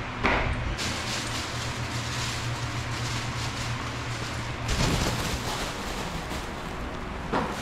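Steady low hum and hiss of a tiled shower room, with a sharp knock just after the start and rough handling thumps about five seconds in and again near the end.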